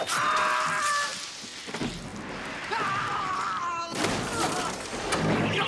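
Film sword-fight sound effects: a sharp clash with a ringing tone at the start, a wavering pitched cry about three seconds in, then a noisy crash from about four seconds in as a body lands on a table.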